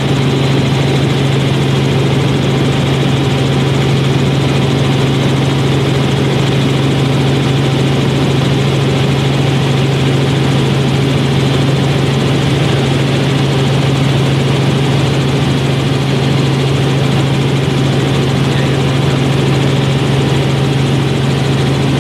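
Aircraft engine drone heard inside the cabin in flight: a loud, steady hum with a constant low tone and an even rush of noise, unchanging throughout.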